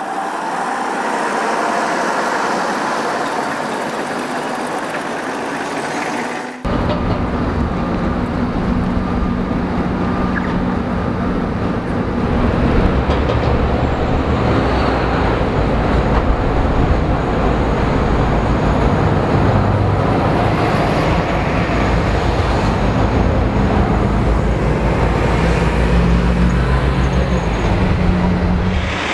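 City street traffic with buses and cars passing. For about the first six and a half seconds the sound is thin with little bass; then it changes abruptly to fuller traffic sound, with the low running of diesel bus engines.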